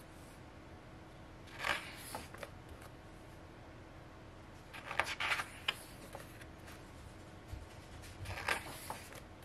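Paper pages of a photo book being turned, rustling three times with short pauses in between.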